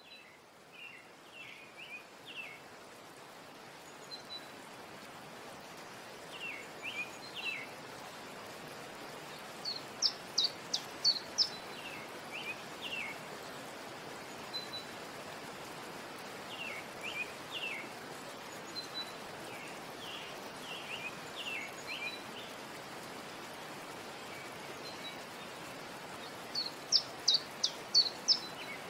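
Birds chirping and singing over a steady background hiss, which fades in over the first few seconds. Short groups of chirps come every few seconds, with a run of rapid, loud, high chirps about ten seconds in and again near the end.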